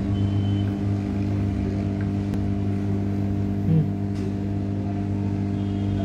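Hot air rework station running, its blower giving a steady humming drone while it heats the solder of a phone's charging-port connector. One short low thud a little past halfway.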